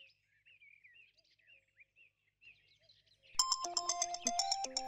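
Faint birds chirping, then about three and a half seconds in a smartphone starts ringing: a loud melodic ringtone of short stepped notes.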